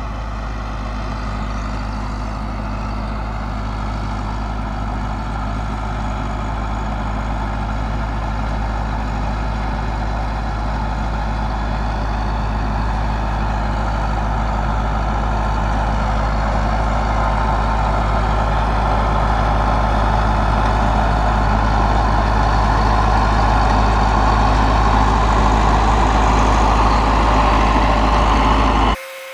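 Massey Ferguson 375 tractor's diesel engine running steadily under load while baling hay, with a deep, even engine sound that slowly grows louder. It cuts off abruptly just before the end.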